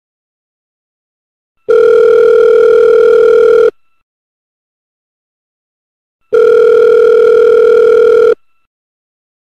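Telephone ringing: two rings of about two seconds each, about four and a half seconds apart, each a steady pitched tone with silence between.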